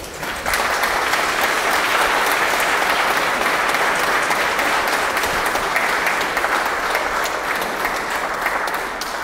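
Congregation applauding, many hands clapping together. The clapping breaks out about half a second in and eases slightly near the end.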